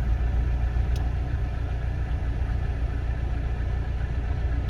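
A Chevrolet Monza 2.0 EFI four-cylinder heard from inside the cabin: a steady low engine and road rumble, with a single faint click about a second in. The click could be the strange noise that repeats every few seconds, which the owner likens to a windshield-wiper timer relay clicking.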